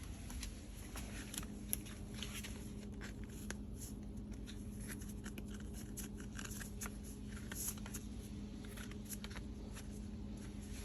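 Scattered light clicks, scrapes and rustling of a dirty pleated cabin air filter being worked out of its plastic frame by hand, over a faint steady low hum.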